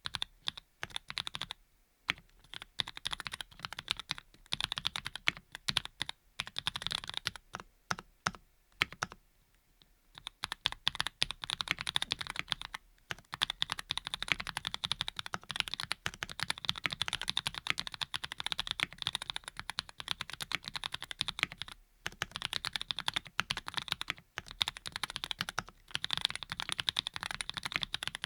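Typing on a Graystudio Think6.5 V2 mechanical keyboard with lubed linear switches (Cherry bottom housing, cream stem and top), a steady run of soft keystroke clacks broken by a few short pauses.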